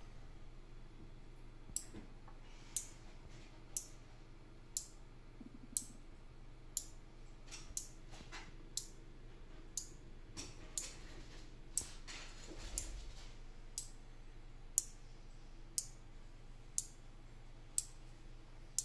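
Electromechanical relays on four-channel relay modules clicking as they switch, about once a second, run by a random test sequence that steps one relay each second.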